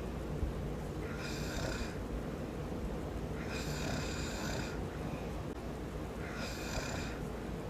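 A man snoring in his sleep, with a regular breath about every two and a half seconds, three in all.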